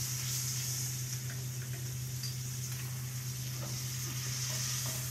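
A boning knife scraping and cutting faintly along a beef rib bone, a few small scrapes and ticks, as meat and fat are trimmed off to french the bone. Under it runs a steady low hum with a high hiss.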